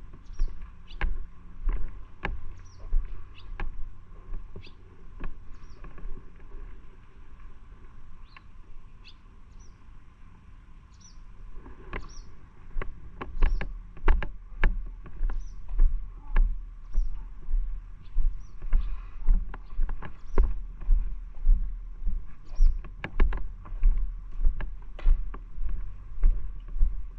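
Footsteps of a person walking on pavement: irregular at first, then a steady step about every two-thirds of a second from about halfway through.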